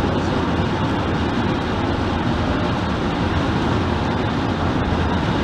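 Steady road and wind noise inside a car's cabin at motorway speed, about 105 km/h.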